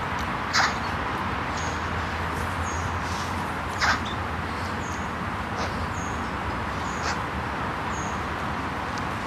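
Steady outdoor hiss with a short, high-pitched peep repeating about once a second, like a small bird calling. Three sharp clicks stand out, the loudest about half a second in and just under four seconds in.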